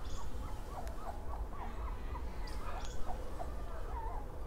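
Golden retriever puppies whimpering: a run of short, high whines that bend up and down in pitch, about three a second.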